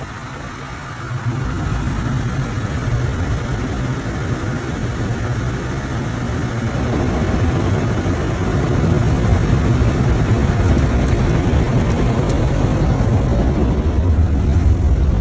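Automatic car wash working over the car, heard from inside the cabin: a steady, loud, low noise of spinning brushes and water spray, which grows louder about a second in.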